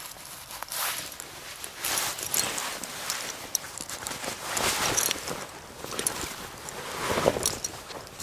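Footsteps and rustling on dry leaf litter and twigs, coming in several crackly swells, the loudest near the end as clothing brushes close to the microphone.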